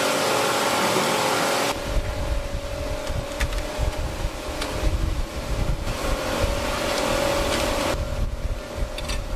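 Noodle-factory machinery running: a steady hiss and hum. About two seconds in it gives way to a lower rumble with a steady tone and a few light clinks of steel rods being handled.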